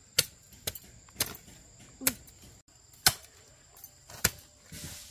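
A series of sharp chopping knocks, about six of them, irregularly spaced half a second to a second apart.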